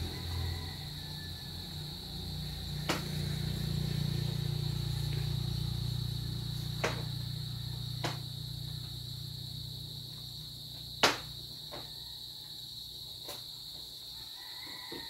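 Insects trilling in one steady, high-pitched drone, over a low rumble of highway traffic that fades out about ten seconds in. A handful of short, sharp clicks sound now and then, the loudest about eleven seconds in.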